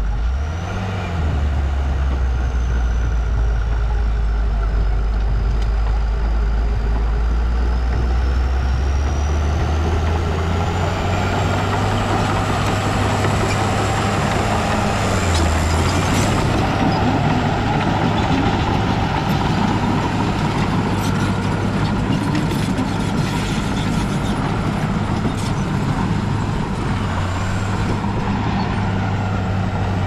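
Heavy diesel earthmoving machinery running hard, its engine note shifting several times. A thin high whine slowly falls and rises over it, and there are many clanks and knocks through the middle stretch.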